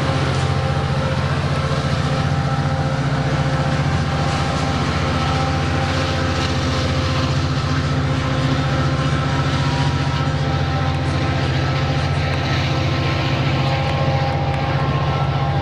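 EMD F59PH diesel locomotive running: a steady low engine drone with faint steady whines above it, unchanging in pitch and level.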